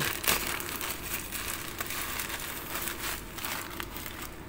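Plastic parcel packaging, a courier mailer bag and bubble wrap, crinkling continuously in the hands as it is handled and opened, with many small irregular crackles.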